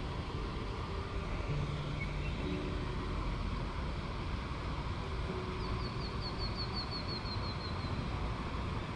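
Steady low rumble of wind buffeting the microphone. A small bird sings a quick trill of about a dozen short falling chirps for about two seconds, past the middle.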